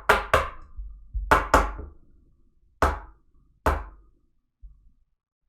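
Card holder being tapped on a desk to make the card slide down inside it: six sharp knocks, two quick pairs and then two single taps.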